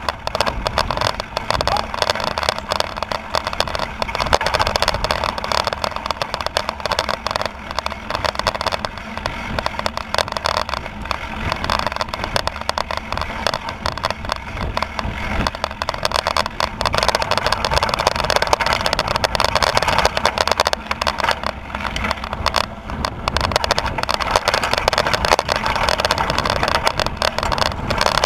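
Mountain bike rolling fast down a gravel and dirt trail: steady tyre rumble over loose stones with constant rattling and clatter from the bike, picked up by a camera mounted on the bike.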